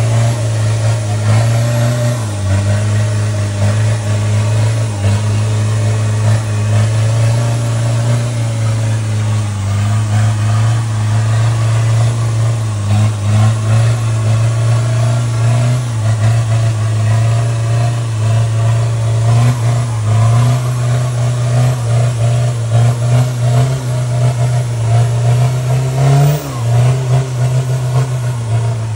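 Toyota Hilux off-road truck's engine running loudly at a steady pitch, with small rises and dips and a brief rev near the end.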